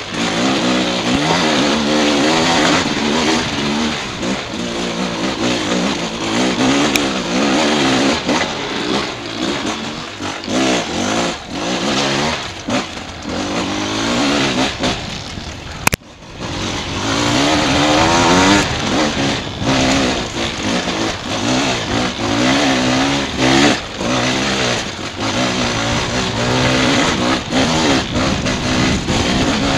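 Dirt bike engine revving up and down without a break as it climbs rough single track, heard from the rider's helmet camera. There is a brief dip about halfway through before the engine picks up again.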